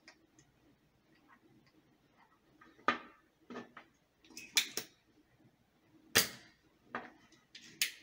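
Spring-loaded desoldering pump being cocked and fired: a series of sharp clicks and snaps, about six over a few seconds, the loudest about six seconds in.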